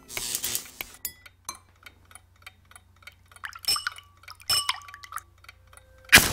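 Scattered faint clicks and ticks, with two louder ones around the middle, then a match struck near the end, flaring with a short hiss.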